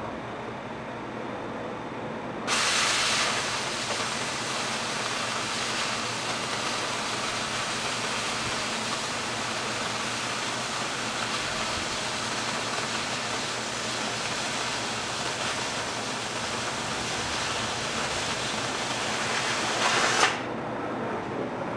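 Oxyacetylene cutting torch: the preheat flame hisses, then about two and a half seconds in the cutting-oxygen lever opens and a loud, rushing hiss of the oxygen jet cutting through half-inch steel plate holds steady for about eighteen seconds. It stops abruptly, leaving the softer hiss of the preheat flame. The cut is run at about the right travel speed for half-inch plate.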